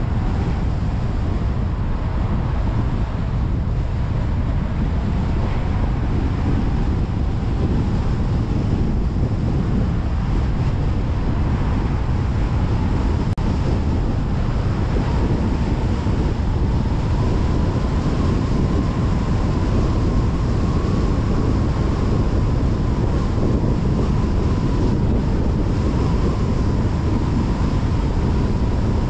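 Car travelling at speed on a highway: steady rumble of tyres and road with wind noise, and a faint whine that rises a little in pitch around the middle.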